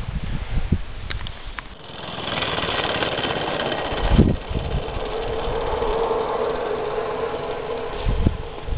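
Bellflower Cricket III live steam locomotive running close by, a steady hiss of steam and exhaust starting about two seconds in, with a humming note underneath. A few low thumps come and go.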